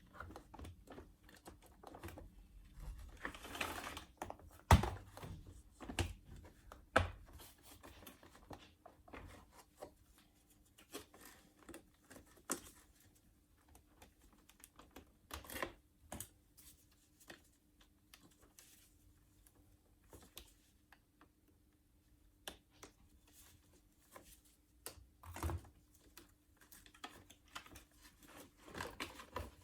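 Scattered light clicks and taps of small parts being handled, with a louder knock about five seconds in, over a faint steady hum.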